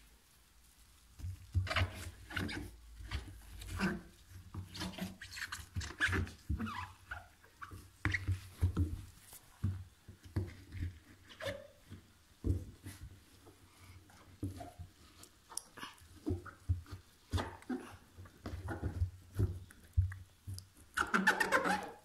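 Damp laundry rustling and hands and phone knocking about as a hand reaches into the open drum of a front-loading washing machine: irregular scuffs and knocks. About a second before the end there is a short, louder sound with a pitch.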